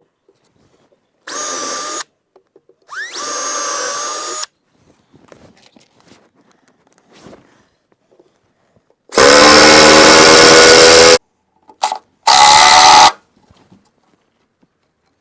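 Cordless power drill/driver running in four short bursts: two moderate runs early on, then two much louder ones in the second half. Some of the runs start with a rising whine as the motor spins up.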